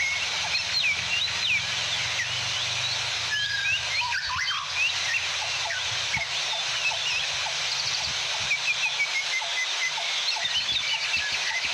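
Many birds chirping and singing in short whistled notes and glides, over the steady rush of a waterfall.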